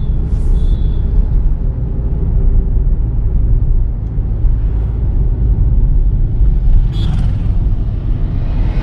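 Volkswagen Virtus GT on the move, a steady low rumble of engine and road noise. A brief sharper sound cuts through near the start and again about seven seconds in.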